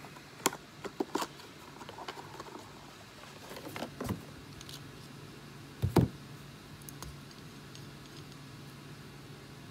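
Small knocks, taps and clinks of Avon car-shaped decanters being picked up and handled, with a few sharp taps about a second in and the loudest knock about six seconds in, over a steady low hum.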